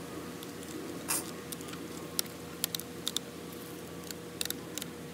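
Hayward AquaRite flow switch being unscrewed by hand from its PVC pipe fitting: a scatter of short plastic clicks and scrapes at irregular moments as it is turned. A steady low hum runs underneath.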